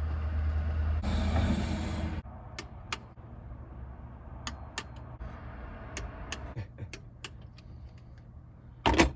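Light scattered clicks and metallic taps of hand tools and engine parts being handled during timing chain tensioner fitting, with a louder cluster of clicks near the end. A steady low hum and a short rushing noise cut off about two seconds in.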